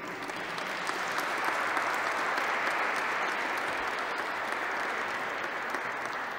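A small audience applauding at the end of a song, the clapping building up over the first couple of seconds and then slowly dying away.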